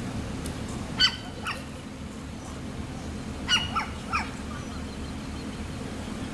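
A dog giving short, sharp barks or yelps: two about a second in, then three more in quick succession a couple of seconds later, over a steady low background rumble.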